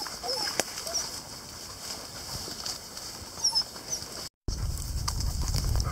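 Puppies giving short, soft whines in the first second, with small high bird chirps and twigs snapping under paws. After a cut about four seconds in, wind rumbles on the microphone.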